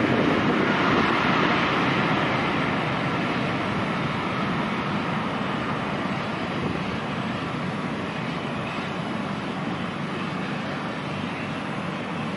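Airplane landing: a steady rushing noise of engines and airflow that slowly dies down over the several seconds.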